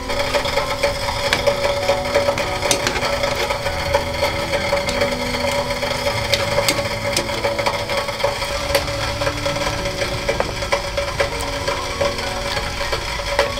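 Firewood crackling and popping in a Shinpo Romantical wood stove: a dense, irregular run of sharp snaps over a steady faint tone.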